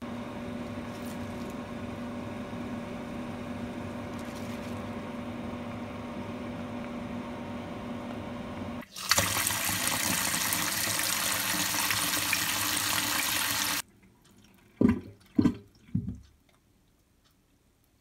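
Kitchen tap water running into a stainless steel colander of seaweed stems, steady at first with a faint ring. About nine seconds in it changes to a harder, brighter rush, which cuts off suddenly. Three short low thumps follow just after.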